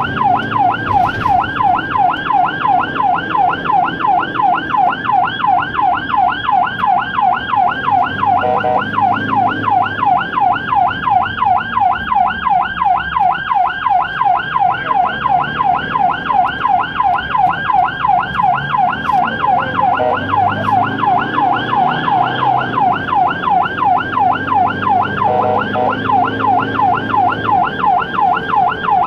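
Ambulance siren on a fast yelp, its pitch sweeping up and down several times a second without a break, heard from inside the cab over the low rumble of the vehicle's engine and road noise.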